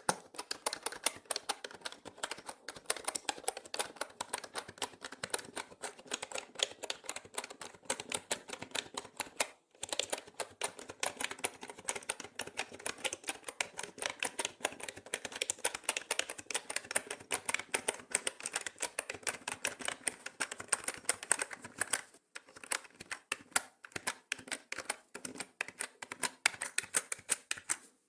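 Rapid, continuous typing on a mechanical keyboard: dense, irregular key clicks with two brief pauses, about ten seconds in and about 22 seconds in. The sound is mixed as 8D audio.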